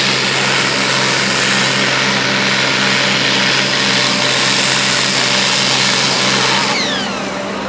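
Fendt pulling tractor's diesel engine running hard under full load during a pull, a steady loud drone with a high whine over it. Near the end the whine falls in pitch and the sound eases as the revs drop.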